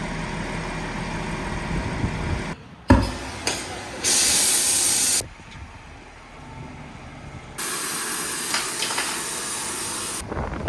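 A rumbling work noise, a sharp knock just under three seconds in, then two loud bursts of hissing, the first about a second long and the second about two and a half seconds long, each starting and stopping abruptly.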